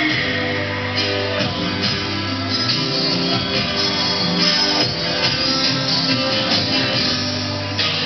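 Live stage-show music with guitar over a steady beat.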